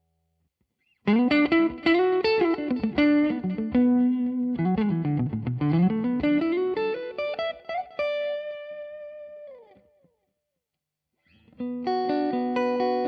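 Electric guitar, a Music Man Silhouette Special, played through MODEP effects plugins on a Raspberry Pi Pisound. After a second of silence it plays fast single-note runs up and down, then a held note that bends down and dies away. After a short gap, notes start again near the end.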